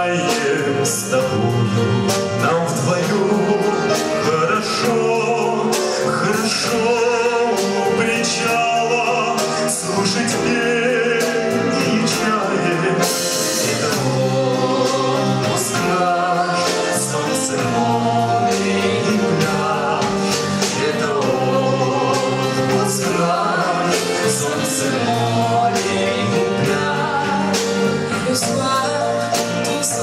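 A man and a woman singing a 1960s French pop song in its Russian version, as a duet into microphones with a small live band of keyboard and guitar. Continuous vocals over a steady beat.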